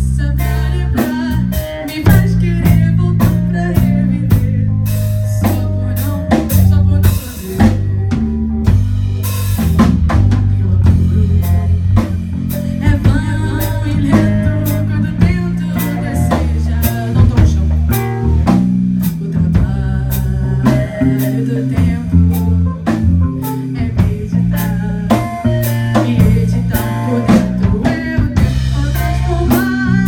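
Live rock band playing: drum kit with frequent snare and cymbal hits, two electric guitars and an electric bass guitar.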